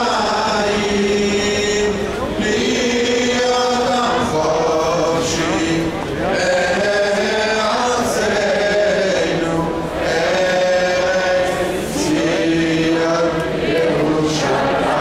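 Large crowd singing in unison, a slow melody of long held notes in phrases of about two seconds.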